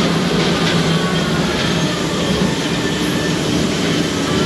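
Family roller coaster train running along its steel track, a steady rumble from the wheels with faint wheel squeal.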